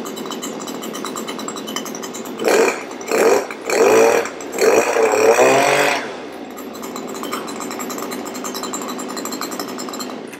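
Small two-stroke engine of a STIHL SP 92 olive harvester running at idle, revved four times in quick succession with the throttle about two and a half seconds in, then settling back to idle before cutting off at the very end.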